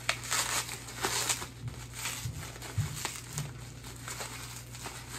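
Plastic bubble wrap crinkling and rustling as it is pulled and unwrapped by hand, with scattered sharp crackles.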